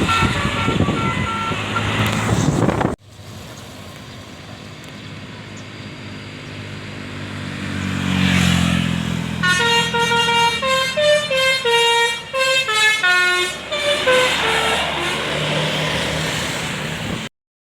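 Bus engine and road noise with short horn toots, then after a cut a bus drawing near and sounding its Indonesian telolet multi-tone air horn: for about four seconds the horn plays a stepping melody, a sholawat tune, before the bus passes. The sound stops abruptly near the end.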